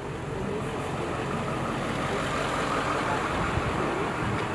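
A motor vehicle's engine running, growing a little louder over the first couple of seconds.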